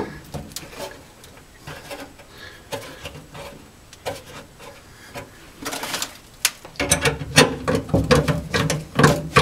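Scattered clicks and scrapes of hands working metal parts inside a VW bus's engine bay above the fuel tank. About two-thirds of the way in they give way to a denser run of louder knocks and rattles with a ringing tone.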